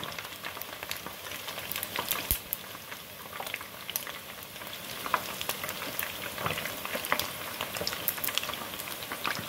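Chicken wings deep-frying in the basket of an electric deep fryer: a steady sizzle of bubbling hot oil with scattered crackling pops.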